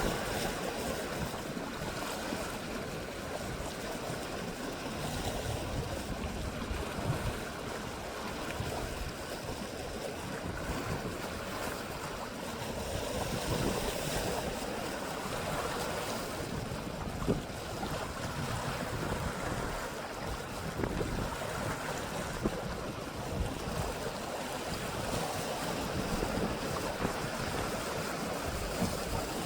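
Steady wash of small sea waves, with wind rumbling on the microphone.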